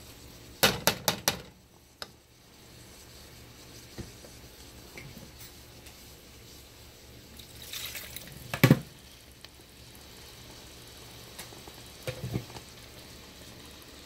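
Blended pepper and pumpkin-seed paste frying in oil in a pot under a glass lid, a low steady sizzle. A quick run of about four clinks comes about half a second in, a louder knock just before the nine-second mark, and a few light clicks near the end.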